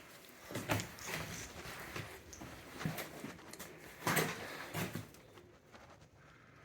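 Irregular knocks and scuffs in a small room, about five of them, the loudest about four seconds in.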